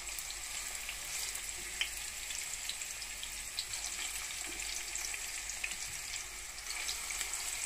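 Tempeh slices frying in hot oil in a nonstick frying pan: a steady sizzle with many small crackles.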